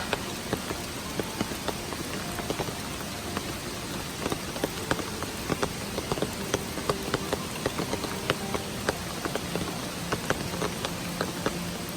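Rain falling, with single drops striking a surface in sharp, irregular ticks over a steady hiss.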